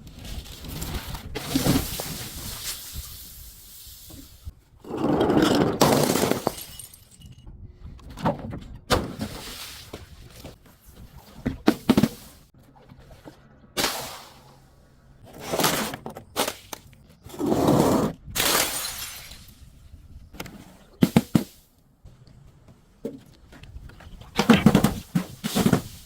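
Glass bottles being broken and crushed: about ten separate crunching, cracking bursts, a few of them drawn-out crunches lasting about a second, with short pauses between.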